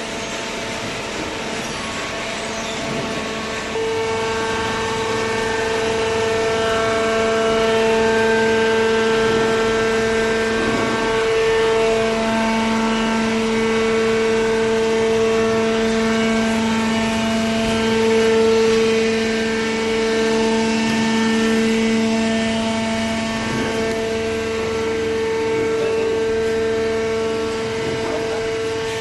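Hydraulic power unit of a paper and cardboard baler running with a steady pitched whine, becoming louder about four seconds in.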